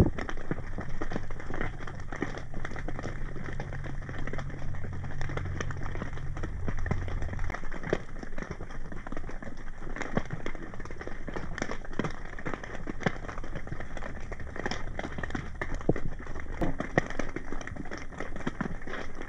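Underwater sound picked up through a camera housing on the seabed: a dense crackle of small clicks and pops over a low steady hum, which drops lower about seven seconds in.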